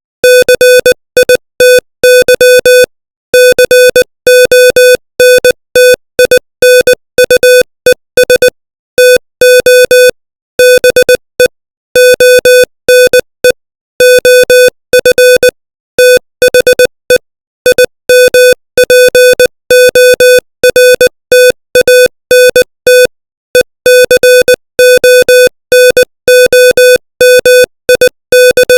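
Morse code at 20 words per minute: a single mid-pitched electronic beep keyed on and off into short dots and longer dashes, with brief gaps between letters and longer pauses between words.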